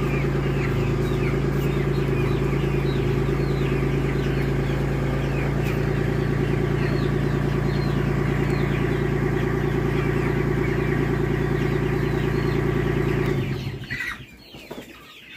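A tractor engine running at a steady idle, cutting off about thirteen seconds in, with young chickens cheeping throughout.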